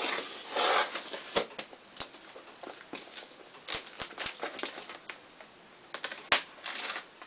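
Utility knife slicing through the clear plastic bag wrapped around a cardboard shipping box, with the plastic crinkling and tearing in short bursts and scattered sharp clicks.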